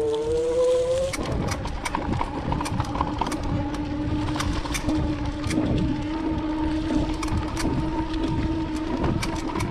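Electric bike hub motor whining under power, rising in pitch as the bike speeds up in the first second, then holding a steady pitch. Tyre rumble and frequent sharp clicks and rattles of the bike jolting over a rough trail run throughout.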